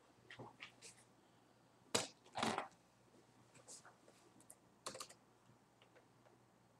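A few scattered light clicks and taps. The loudest is a sharp click about two seconds in, followed at once by a short scrape, with another cluster of clicks about five seconds in.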